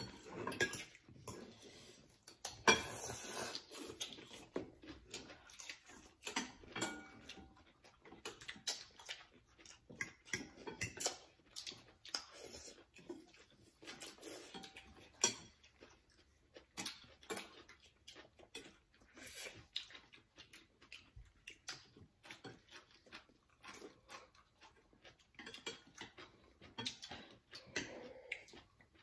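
Eating sounds from bowls of rice noodles: irregular slurping and chewing mixed with chopsticks and spoons clicking against bowls.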